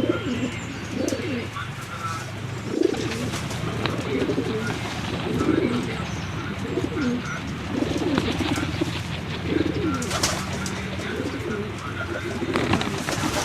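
A flock of pigeons cooing, many low, overlapping coos repeating about once a second, with scattered sharp clicks and a brief rustling burst near the end.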